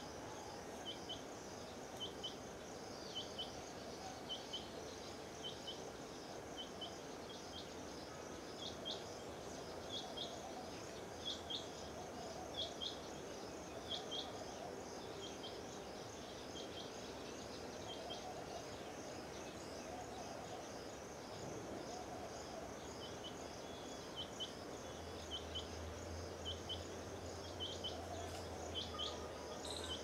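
A bird repeating short high chirps about once a second, sometimes in pairs, over a steady high-pitched insect drone. A faint low hum joins near the end.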